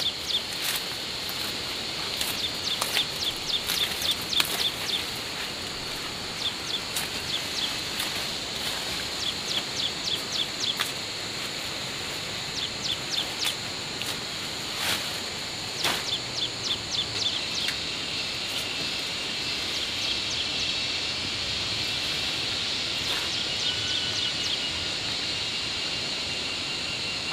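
Countryside ambience: repeated rapid chirping trills over a steady high drone, with a few sharp clicks.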